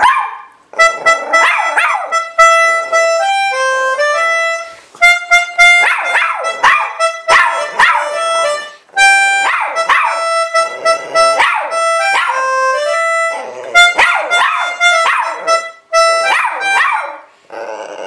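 A poodle howling along in repeated wavering bouts to a melody played on a toy electronic keyboard. The keyboard has a reedy, organ-like tone, its held notes stepping up and down with short pauses between phrases.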